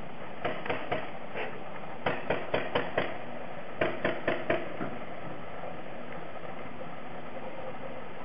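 Paintball gun firing about a dozen sharp shots in three quick runs: three, then five, then four or five, all within the first five seconds.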